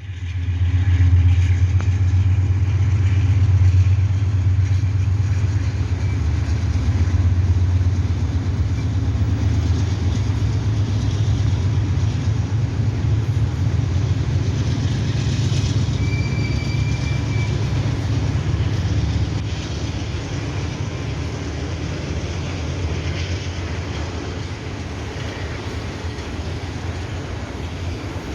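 A pair of GE Dash-9 diesel-electric locomotives hauling a grain train and accelerating hard, with a deep, steady engine rumble. The rumble is loudest in the first few seconds and eases slightly later on. A brief high tone sounds about midway.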